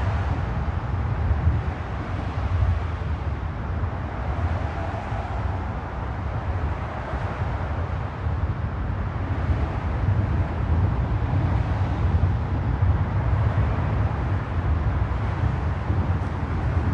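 Bridge ambience: a steady low rumble of passing road traffic, swelling and easing a little, with no single event standing out.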